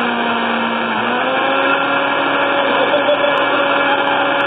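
Countertop blender running steadily at full power, its motor pitch stepping up slightly about a second in.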